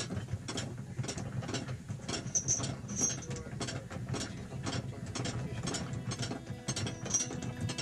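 Ratchet and pawl of a hand winch clicking over and over as it is wound, about three or four clicks a second, over a steady low rumble.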